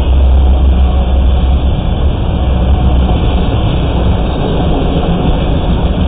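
Autorack freight cars rolling past close by: a loud, steady rumble of steel wheels on the rails, with faint clicks over it.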